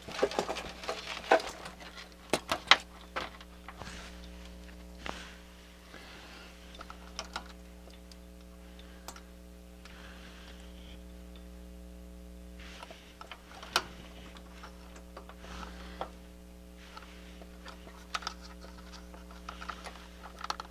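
Irregular light clicks and taps of parts and tools being handled on a repair bench, busiest in the first few seconds, over a steady low electrical hum.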